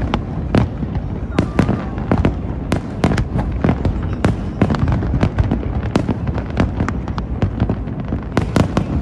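Fireworks display going off: sharp bangs several times a second at irregular intervals over a steady low rumble, with crackling growing thicker near the end.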